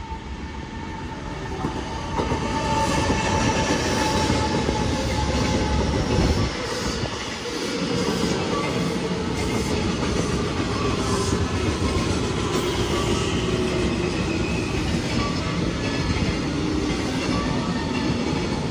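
JR West 225 series and 223 series electric multiple unit pulling into the platform at speed and braking. Its wheels clack over the rail joints, and a whine falls slowly in pitch as it slows.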